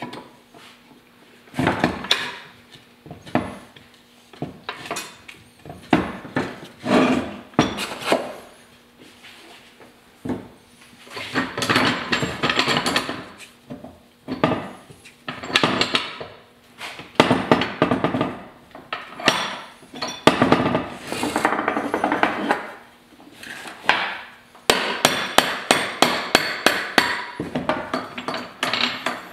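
Metal clanks and knocks as parts of an early-1940s Ford synchromesh transmission are handled and fitted into its case, ending with a quick run of light hammer taps, about four a second, near the end.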